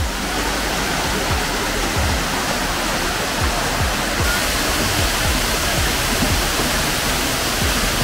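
Water of a rocky jungle stream and small waterfall rushing steadily over rocks. Background music with a low, regular beat runs underneath.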